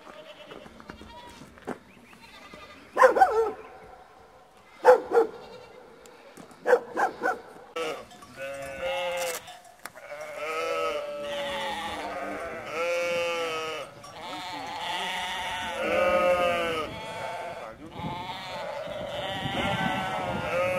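A flock of goats bleating: a few loud single calls first, then from about eight seconds in many overlapping, wavering bleats at once.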